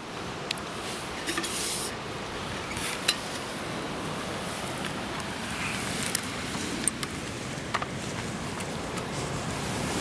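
Steady rushing of a small river's riffle, with a few short clicks and knocks scattered through it.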